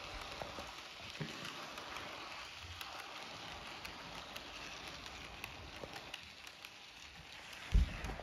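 Model train cars rolling past on toy track: a steady clatter of small wheels on the rails with many quick clicks. Near the end there is a single heavy thump.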